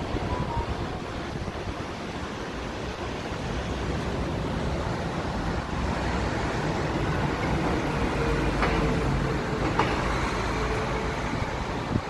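City street traffic noise: a steady rumble of passing vehicles, swelling in the second half as something heavier goes by.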